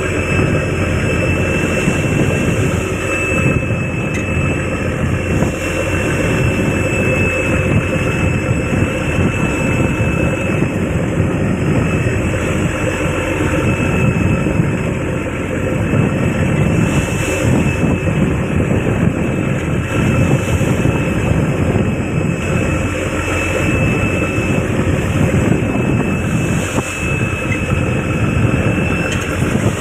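Fishing trawler's inboard diesel engine running steadily under way, a continuous loud drone, mixed with wind and sea noise.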